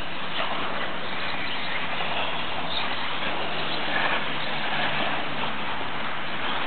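Electric 4WD radio-controlled off-road buggies running on a dirt track: a steady mix of motor and tyre noise with a few short clatters.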